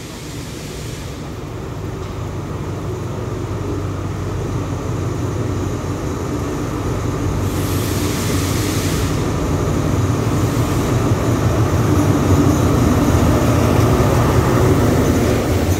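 Commuter train approaching and pulling into the station, its low rumble growing steadily louder, with a brief burst of hiss about halfway through.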